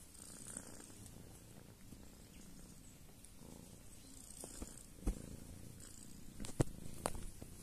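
Domestic cat purring steadily close up, a low, rough rumble. A few sharp knocks come in the second half, the loudest about five and six and a half seconds in.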